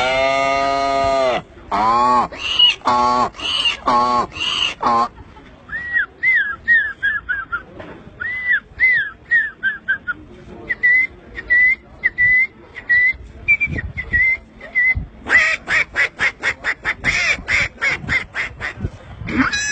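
A man imitating a string of animal calls with his voice. It opens with the tail of a long, low moo. A few short calls follow, then a long run of high, bird-like chirps rising and falling. Near the end comes a fast burst of short clipped calls.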